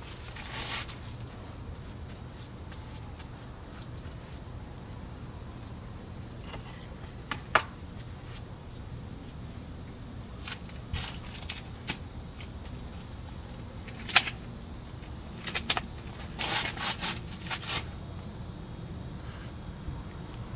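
Steady high-pitched chorus of insects on a summer evening, with a few scattered clicks and knocks, the sharpest about two-thirds of the way in.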